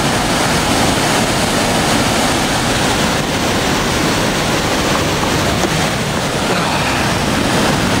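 Waterfall and river rapids rushing, a loud steady noise.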